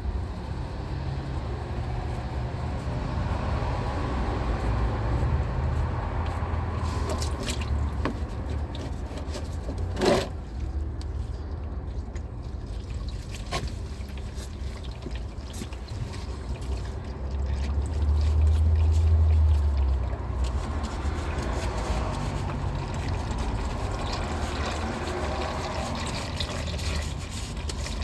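Old engine oil pouring in a steady stream from the sump drain hole of a Range Rover's supercharged V8 into a drain pan. A single sharp knock sounds about ten seconds in, and a low rumble swells briefly a little past the middle.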